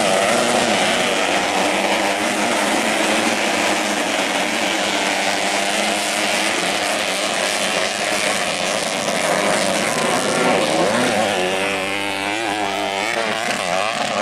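Several modified underbone-engined dirt bikes racing on a dirt track, engines revving up and down over one another as they jump and accelerate. The revving grows denser and louder near the end as a pack of bikes comes close.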